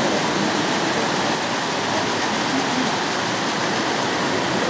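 O gauge tinplate model trains running on metal track: a steady rushing noise of wheels on the rails.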